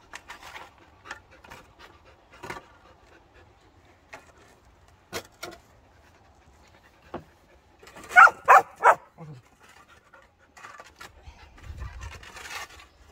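Samoyed puppy panting as it tugs at a shovel, with faint knocks and scrapes, then three quick barks about eight seconds in.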